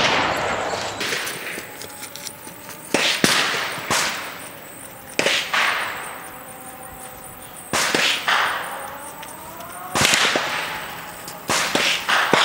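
Gunshots from other shooters on the range: about seven sharp reports at irregular intervals, each trailing off in a short echo.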